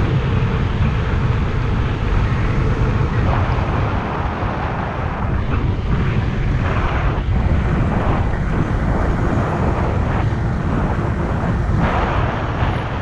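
Steady rush of wind and road noise from riding a fast electric fat-tyre bike, heaviest in the low rumble.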